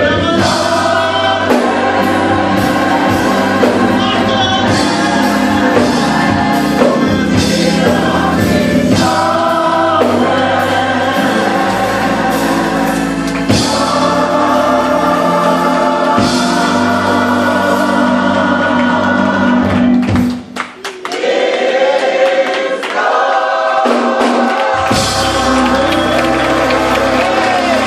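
Gospel choir singing with a bass accompaniment. About three-quarters of the way through the sound breaks off for a moment, and the bass stays out for a few seconds before coming back in.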